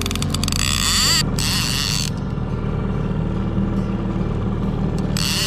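Boat's outboard motor running steadily at trolling speed. In the first second there is a rapid run of clicks, and a rushing hiss rises briefly about a second in and again near the end.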